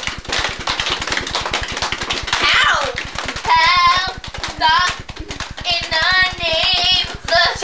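Girls' voices squealing and laughing in several high, wavering bursts over a fast, steady patter of taps and claps.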